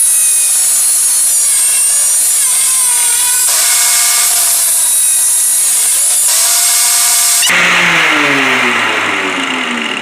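Angle grinder's cutoff wheel cutting through a metal quick-connect fitting: a loud, steady high-pitched hissing whine. About seven and a half seconds in the cut ends and the grinder's motor winds down, its pitch falling.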